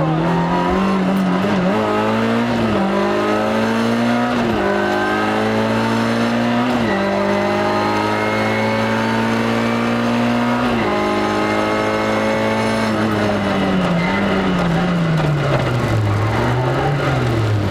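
Rally car engine at full throttle: its note climbs and drops sharply at three upshifts, holds steady at speed, then falls away with two short rises near the end as the driver comes off the throttle.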